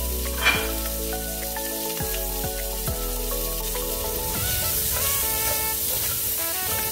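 Diced red onions sizzling in ghee in a hot pan, stirred with a spoon from about four seconds in. Background music with steady notes and a bass line plays along.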